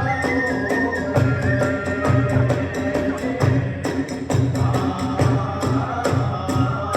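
Kagura hayashi accompaniment playing a brisk rhythm: a large drum beating about twice a second, small hand cymbals (tebyoshi) clashing, and a transverse flute holding high notes that step down in pitch about halfway through.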